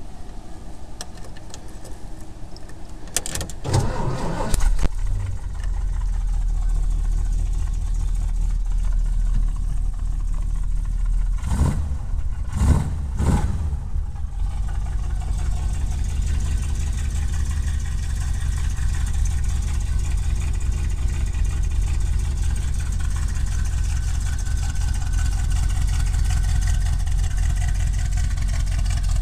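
1978 Ford Coachman camper van's engine cranking and catching a few seconds in, then running at a steady idle. It is blipped three times in quick succession about halfway through, then settles back to idle.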